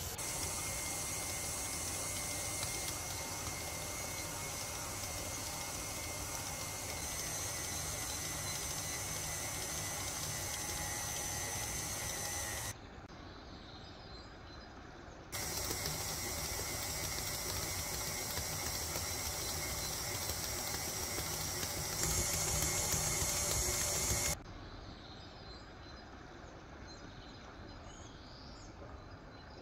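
Stand mixer running steadily as its dough hook kneads a wet bread dough in a stainless steel bowl, a steady whir with a high whine. Twice the sound drops to a much quieter background for a few seconds, about thirteen seconds in and again near the end.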